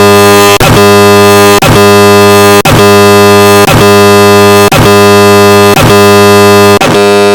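The 'Explosivo' sound effect, digitally slowed and stretched until it has become a loud, steady, buzzing synthetic drone on one low pitch. It is broken by a brief click-like gap about once a second, where the loop repeats.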